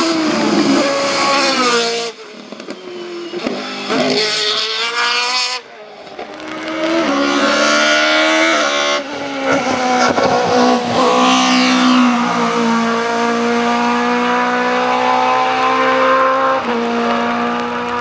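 Hillclimb race car engines at full throttle, one car after another: first an open-wheel single-seater as it comes through a bend, then a small hatchback race car revving hard up the hill. Its engine pitch climbs through each gear and drops at each upshift.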